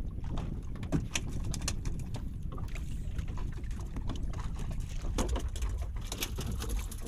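Steady low rumble of wind and water around a small open fishing boat, with scattered sharp clicks and knocks from fishing line, fish and gear being handled.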